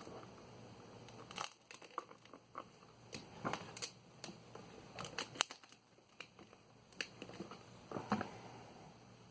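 Irregular clicks, taps and short rustling or crinkling sounds of small hard objects and parts being handled, with a few louder knocks about halfway through.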